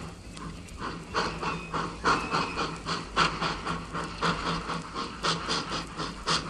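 Steam locomotive chuffing: a steady rhythm of short exhaust puffs, about three a second, with a hiss of steam. The puffs are fainter for the first second, then run on evenly.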